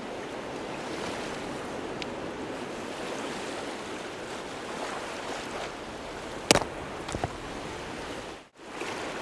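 Small surf washing steadily onto a sandy beach. About six and a half seconds in comes one sharp stone-on-stone knock, then a couple of lighter clicks: a hermit crab's tough shell being cracked between beach rocks.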